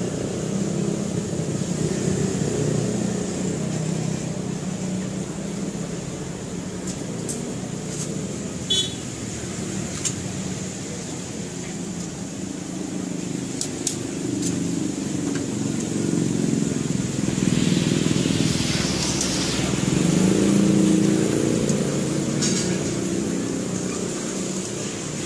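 Street traffic noise, with vehicle and motorbike engines running past. One vehicle passes louder from about 17 to 22 seconds in. A few light clicks come between about 7 and 14 seconds in.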